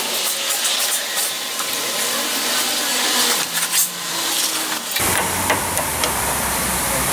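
Hand ratchet clicking as the 18 mm hub-bearing bolts are run down and snugged. About five seconds in the sound changes abruptly to a steady low hum.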